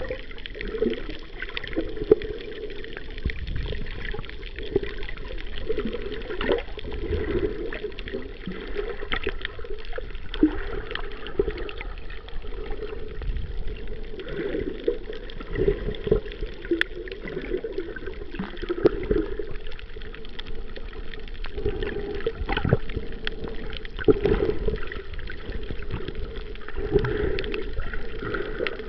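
Underwater sound picked up by a camera held below the surface while snorkeling: water swishing and gurgling around the housing, swelling now and then, with many small clicks throughout.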